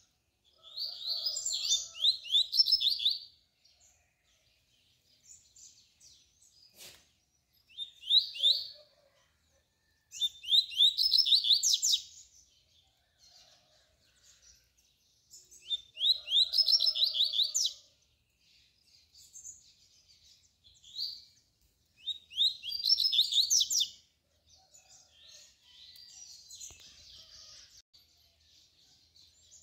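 A caged double-collared seedeater (coleiro) sings its tui-tui song: short phrases of rapid, high, sloping notes, each one to two seconds long, repeated five times with softer chirps in between. A single sharp click comes about seven seconds in.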